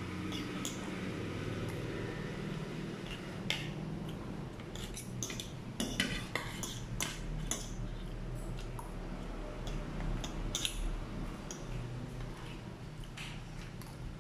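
Spoon and fork clinking and scraping against a dinner plate while scooping up rice, tofu and pork, a run of irregular sharp clinks that is busiest in the middle.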